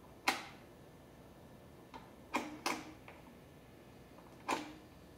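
Sharp mechanical clicks from the controls of a Califone 1455K classroom record player being set by hand. There are four loud clicks, two of them close together in the middle, with fainter ticks between.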